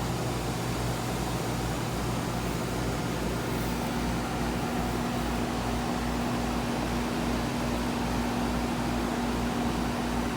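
A steady machine hum with a hiss over it. A single steady tone joins in about four seconds in and runs on.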